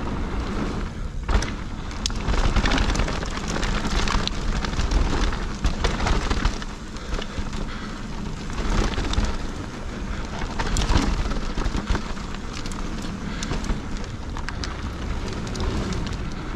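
Mountain bike tyres rumbling and crackling over a dirt and gravel trail at speed, with frequent sharp clicks and knocks as the bike rattles over bumps.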